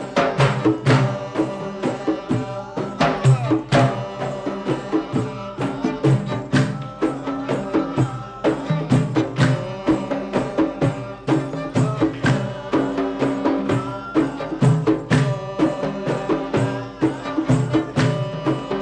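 Traditional Gulf (Bahraini) music. Frame drums beat a steady, busy rhythm under a plucked string melody from an oud and a qanun.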